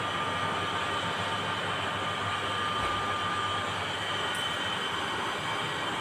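Steady machine hum with an even hiss, carrying a few faint, unchanging high whining tones.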